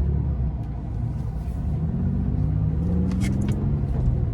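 Car engine under way at low speed, a low rumble whose pitch rises for a second or two about two seconds in as the car accelerates.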